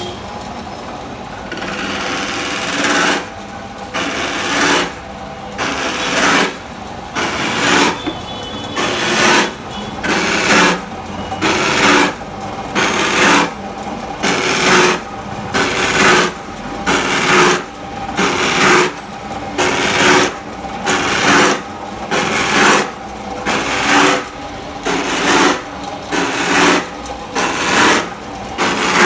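Electric motor-driven slotting cutter cutting short slots into PVC pipe. The motor runs steadily while the blade bites into the pipe with a rasping cut about once a second, starting about two seconds in, as the pipe is moved along slot by slot.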